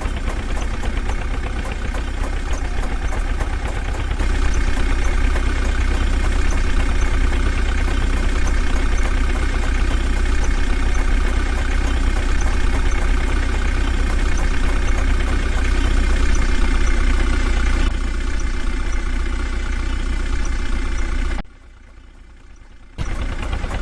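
Heavy diesel engine running steadily, with a deep low rumble. It gets louder about four seconds in and briefly drops away near the end.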